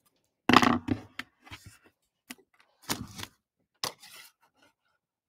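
Craft tools handled on a tabletop: a loud knock about half a second in, then a few softer knocks and a sharp click, as scissors are set down and a hand-held paper punch is picked up and a paper strip is fitted into it.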